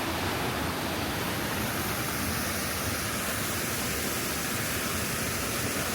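Steady rushing of a waterfall and the water running below it: an even, unbroken noise.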